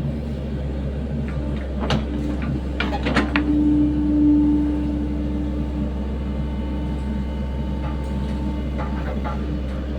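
Sany SY75C mini excavator's diesel engine running steadily while it works, with a whine swelling about three seconds in and fading after six, and a few sharp knocks around two, three and nine seconds.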